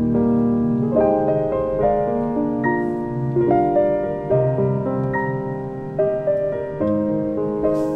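Background piano music: a slow, gentle melody of struck notes and chords, a new note every half second to a second.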